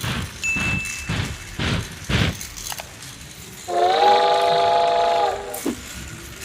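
Toy train whistle sounding a chord of several pitches for under two seconds, partway through, over regular clicking of about two a second from the toy train running on plastic track.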